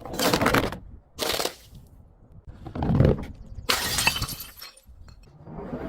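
Glass bottles breaking and shattering: four separate crashes about a second apart, then a patch of crackling near the end.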